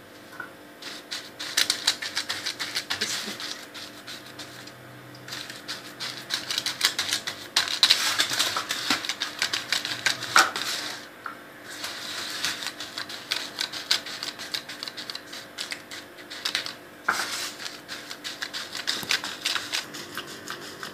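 A hand pressing and patting buttered Oreo cookie crumbs into a foil-lined pan for a cheesecake crust: rapid, irregular crackling and ticking of crumbs and crinkling foil.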